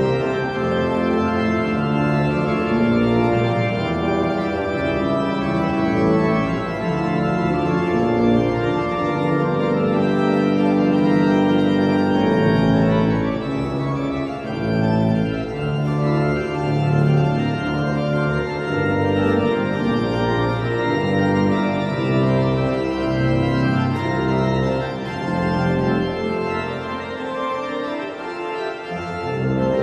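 Organ music: held chords in several voices, with the notes moving every second or so.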